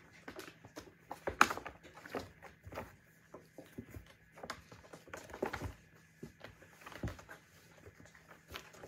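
Kittens wrestling and scrambling around a play tunnel: irregular scuffling, pattering paws and knocks, the loudest a sharp knock about a second and a half in.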